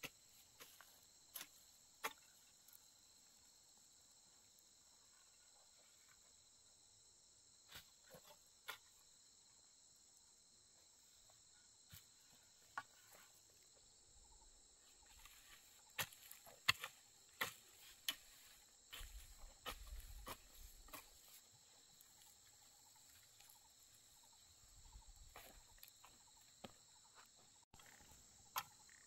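Faint, steady high-pitched insect chorus, with scattered sharp clicks and knocks that bunch together about halfway through.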